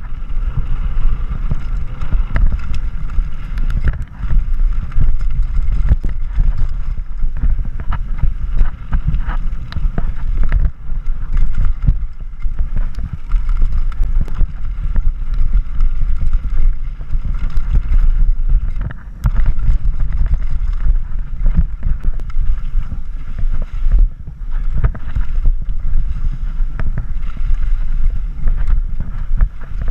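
Mountain bike descending a rough downhill trail at speed: wind buffets the microphone while the tyres and bike rumble and rattle over dirt, loose rock and wooden boardwalk slats, with many sharp clatters along the way.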